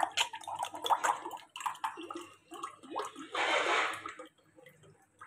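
Orange juice poured from a plastic bottle into a glass tumbler: the liquid splashes and gurgles as the glass fills, denser for a moment about three seconds in, and stops a little after four seconds.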